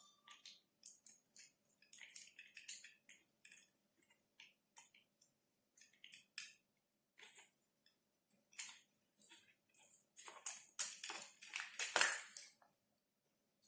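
Irregular small clicks, snips and crackles of hands working electrical cable and a plastic socket and lamp fitting, with a denser, louder run of clicks about eleven to twelve seconds in.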